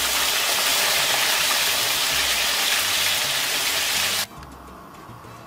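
Potato wedges deep-frying in a pan of hot oil: a steady, loud sizzle that cuts off suddenly about four seconds in.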